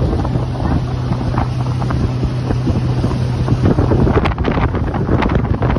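Wind buffeting the microphone and water rushing past a boat under way at speed, over a steady low hum from its 2024 Mercury 115 hp four-stroke outboard. A few sharp knocks come about four to five seconds in.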